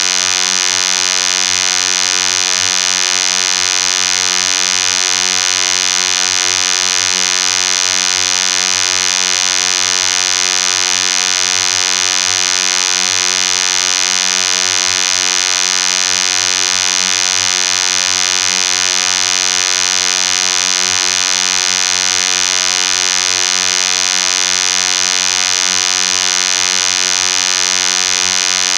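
Synthesized vocoder sound effect: a single steady electronic buzzing tone, rich in overtones, held unchanged without a break.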